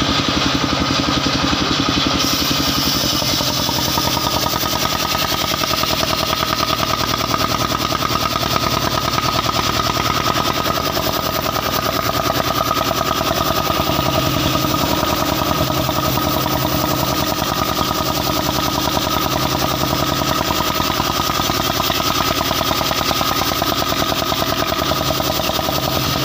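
Engine of a portable circular-saw sawmill running steadily with a fast, even pulsing beat.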